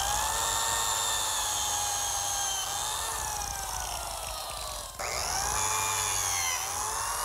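Biscuit joiner (plate joiner) motor running at speed with a high whine, cutting biscuit slots in pine and plywood. Its pitch wavers a little through the cut. The sound breaks off for a moment about five seconds in, then the motor runs again.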